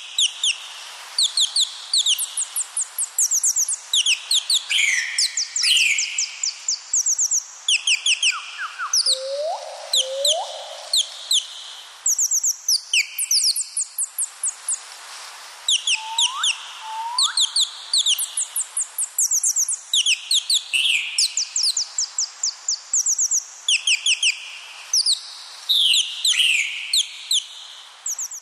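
Birdsong: several birds chirping in quick runs of short, high, falling notes that overlap one another. A few lower rising whistles stand out, twice in pairs.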